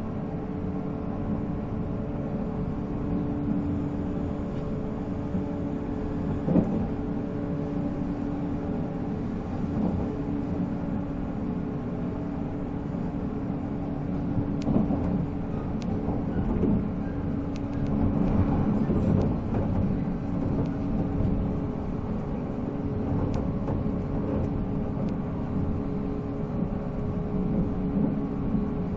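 Running sound inside a JR 485-series electric train car at speed: the MT54 traction motors and gears hum at a steady pitch over the rumble of the wheels on the rails, with a few short knocks from the track.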